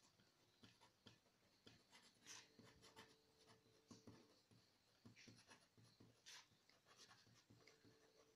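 Faint scratching of a pen writing words on a sheet of paper, in short, irregular strokes.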